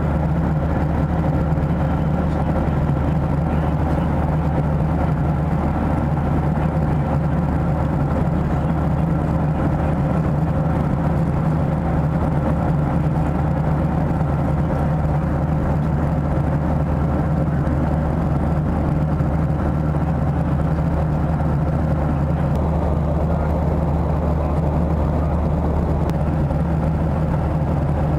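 Steady cabin drone of a Boeing 737-700 in cruise, inside the cabin: airflow roar and the hum of its CFM56-7B turbofan engines, unchanging throughout, with a faint steady tone running through it.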